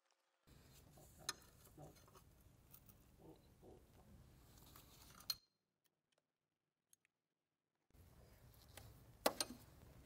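Faint metallic clicks and clinks of a combination wrench working the fuel system fasteners on the engine, with a few sharper taps about a second in, near five seconds and near nine seconds, and a stretch of silence in the middle.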